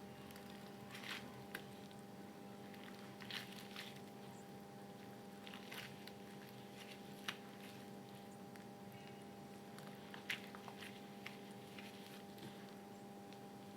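Gym chalk crumbling and squishing in water: soft wet crackles in scattered, irregular bursts, with a couple of sharper clicks, over a steady low hum.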